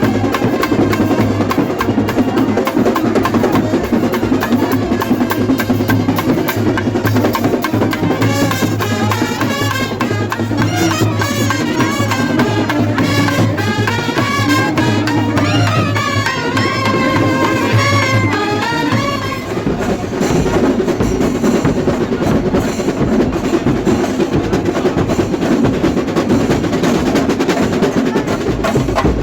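Festival drum ensemble beating steadily in a dense, continuous rhythm. A wavering melody line plays over the drums from about 8 to 19 seconds in.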